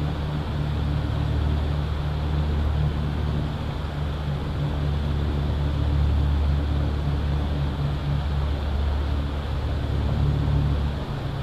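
A steady low engine drone with a constant pitch and no clear starts or stops.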